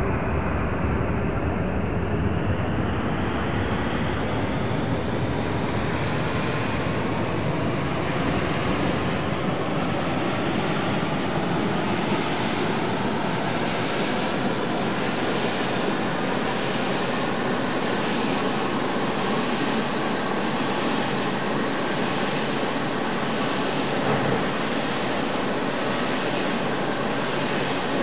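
Manual metal lathe running steadily, its chuck spinning a metal workpiece while a cutting tool turns it.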